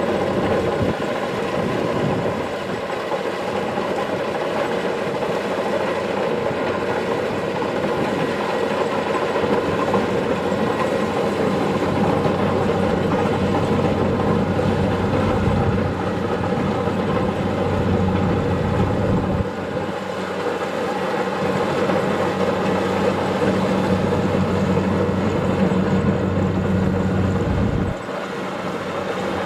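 Kubota DC-70 Plus combine harvester's diesel engine running steadily under load, with the whir and rattle of its harvesting machinery; the sound dips briefly near the end.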